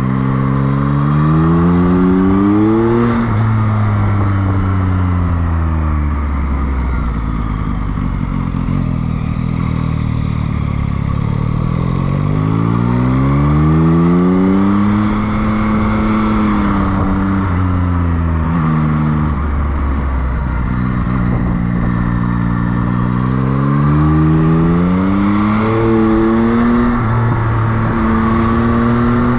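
Motorcycle engine heard from on board, climbing in pitch as it accelerates out of hairpin bends and dropping as it slows for the next, several times over, with quick stepped changes near the end as it shifts gear.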